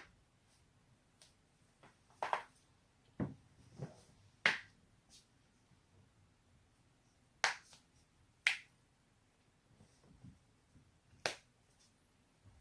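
Neck and spine joints cracking: about seven sharp pops at uneven intervals, several seconds apart at times, with a few fainter clicks between them.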